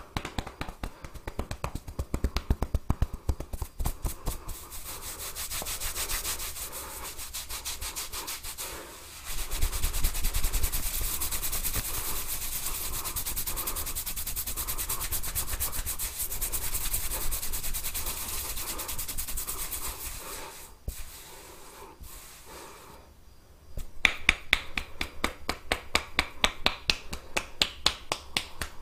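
Hands massaging a head: quick rhythmic strokes and brisk rubbing of fingers through hair and over the scalp. There is a quieter lull about three-quarters of the way through, then quick crisp strokes resume.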